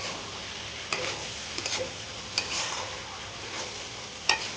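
Chicken curry sizzling in a pan as a spatula stirs it, with a few sharp clacks of the spatula against the pan; the loudest comes near the end.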